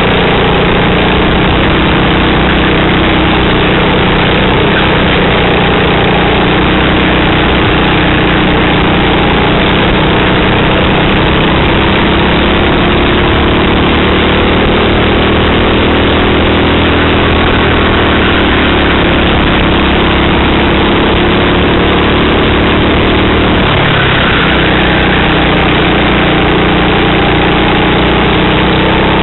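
Racing go-kart engine at full race pace, heard from an onboard camera on the kart. Its pitch rises and falls as the driver accelerates down the straights and lifts for corners, with a marked drop about 24 seconds in before it climbs again.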